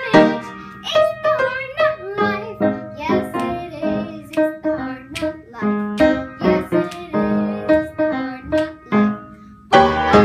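An eight-year-old girl singing solo with upright piano accompaniment.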